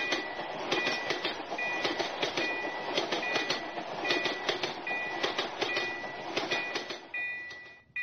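Train passing over a level crossing, its wheels clattering with rapid clicks over the rails, while a Japanese railroad crossing warning bell rings its repeating "kan-kan" tone on top. The train noise fades out about seven seconds in, leaving the bell ringing alone.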